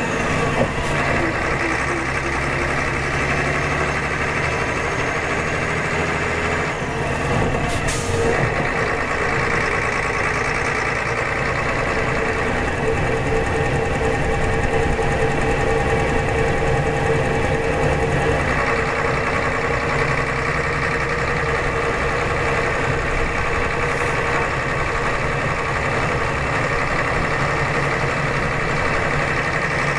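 Rear-mounted Scania DS9 8.5-litre six-cylinder turbo diesel of a Scania K92CR coach running under way, heard from inside the passenger cabin with road noise. The engine note shifts about a third of the way in, and there is a brief sharp click or hiss about eight seconds in.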